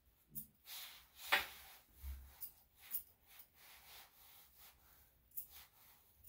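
Grooming scissors snipping a dog's coat in short, irregular cuts, the loudest just over a second in.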